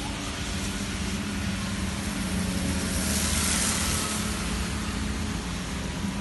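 Steady rain hiss with a low engine hum underneath; the hiss swells for about a second around three seconds in.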